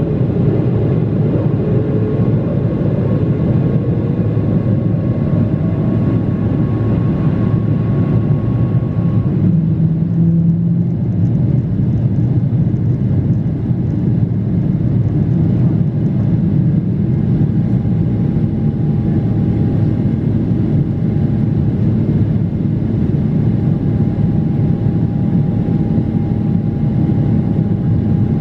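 Boeing 777-300ER's GE90 jet engines running at power, heard as a steady low roar inside the passenger cabin, with a faint whining tone that drops slightly in pitch about halfway through.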